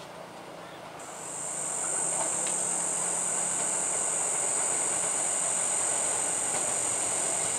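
Electric commuter train, an ex-JR 205 series EMU, approaching on a curve: its running noise grows louder about a second in. A loud, steady, high-pitched whine starts abruptly at the same moment and holds.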